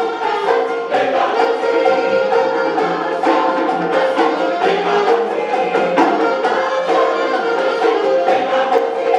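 Large choir singing an African-style song in harmony, with instrumental accompaniment and steady drum strokes.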